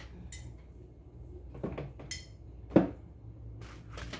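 Food containers being set down and moved about on a kitchen cupboard shelf: a few separate knocks and light clinks of jars, bottles and cans, the loudest knock nearly three seconds in, then a rustle near the end.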